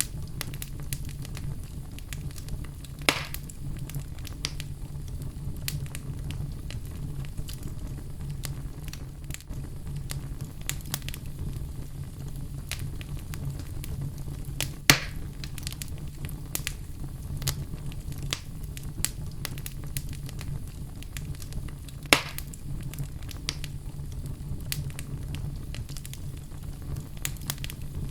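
Outdoor fire burning with a steady low rumble and constant small crackles, with three sharper louder pops about 3, 15 and 22 seconds in.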